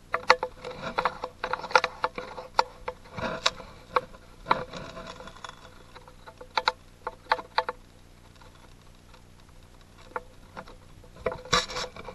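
Handling noise on a rifle-mounted camera: irregular clicks, taps and rubbing against the gun and mount. They come thickly for the first few seconds, thin out, and bunch up again near the end.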